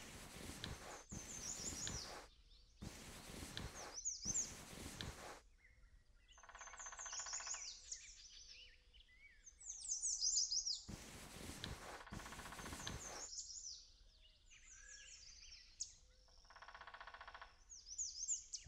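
Small birds chirp and sing throughout. Several bursts of rushing noise cut in and out over this, each lasting half a second to two seconds. A short buzzing tone sounds about seven seconds in and again near the end.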